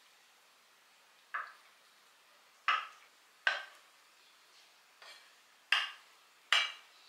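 Chef's knife slicing through a block of tofu, its blade knocking down onto a wooden cutting board with each cut: six short, sharp knocks at uneven intervals, one of them faint.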